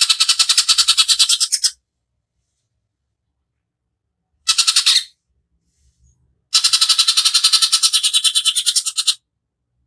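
Cucak ijo (greater green leafbird) giving harsh, rapid rattling 'tembakan' calls: three bursts of fast repeated notes, about ten a second. The first runs out about a second and a half in, a short burst comes near the middle, and a longer one of nearly three seconds comes toward the end.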